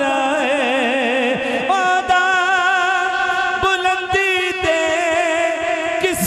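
A man singing a Punjabi manqabat through a microphone and PA. He draws out long notes with no clear words, wavering ornaments for the first second or so, then held steady.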